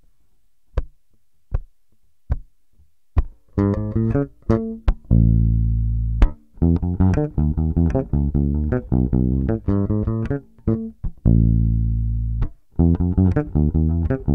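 Late-1970s Music Man StingRay electric bass with flatwound strings, played fingerstyle and unaccompanied: a busy, syncopated sixteenth-note disco line with two long held low notes. It is preceded by four evenly spaced clicks.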